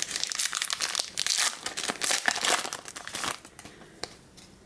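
Foil trading-card pack wrapper crinkling as it is pulled open and handled: dense crackling that dies away a little over three seconds in. A single click follows near the end.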